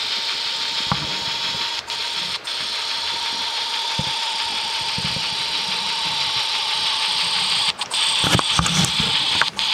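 N-scale Northern Pacific W3 Mikado steam locomotive running on a DCC sound decoder: a steady steam hiss with a thin steady whine from its small speaker. The sound cuts out for an instant a couple of times about two seconds in, and several times in the last two seconds.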